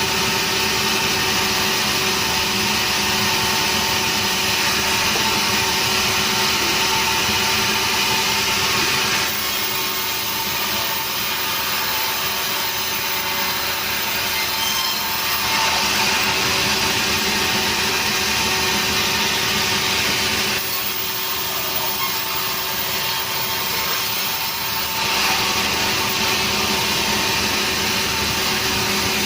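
Sawmill saw running steadily and cutting a log of nering wood, with a continuous hiss from the cut over the machine's steady hum. The high hiss fades for several seconds twice, about nine seconds in and again about twenty-one seconds in, then returns.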